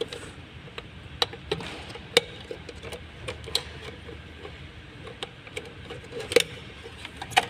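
Irregular light clicks and knocks of hard plastic and a small wire connector being handled as the pump wiring is fitted to a plastic fuel pump module, with a few louder knocks about two seconds in and near the end.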